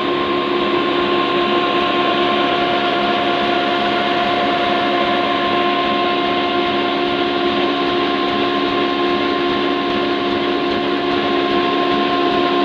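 Belt-driven grinding mill (chakki) running on the belt drive of a 22 HP black diesel 'kala engine', giving a loud, steady machine noise: a constant hum-whine under a dense grinding rush that does not change.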